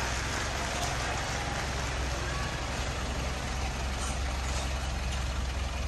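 Mitsubishi Strada pickup's engine running steadily at low revs, a continuous low hum, as the truck creeps slowly away.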